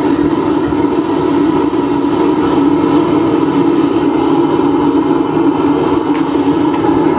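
Forge running with a steady, unbroken noise while a piece of steel heats inside it.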